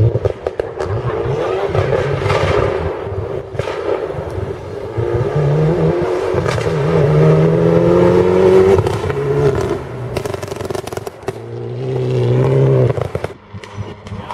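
Rally car passing at speed on a dirt stage. Its engine rises in pitch through the gears several times. Sharp crackles and pops come as it lifts off about ten seconds in, then it pulls hard again until the sound drops away near the end.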